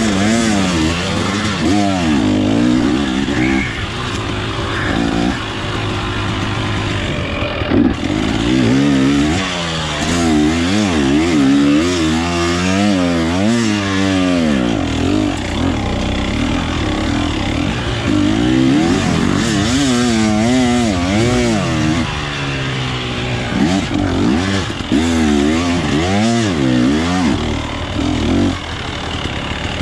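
Off-road enduro motorcycle engine revving hard and constantly rising and falling in pitch as the throttle is opened and chopped through a timed test section.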